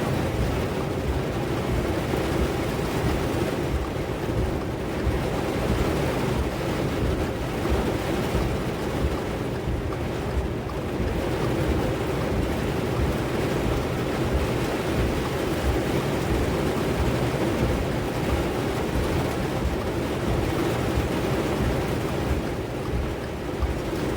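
Steady rush of Tropical Storm Eta's wind, with low gusts buffeting the microphone.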